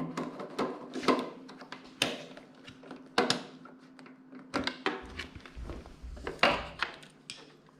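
Scattered clicks and knocks of hands and a screwdriver handling the motorcycle's plastic side covers and bodywork, over a faint steady hum.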